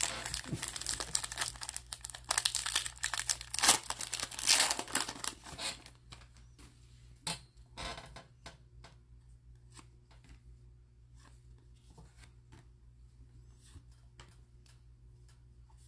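Plastic baseball card pack wrapper being torn open and crinkled for about the first six seconds. After that, quieter scattered clicks and flicks of the cards being handled and laid on the table.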